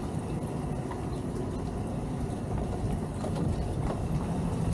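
Twin outboard motors on a towboat running at low speed, a steady low rumble mixed with wind on the microphone, with a few scattered light knocks.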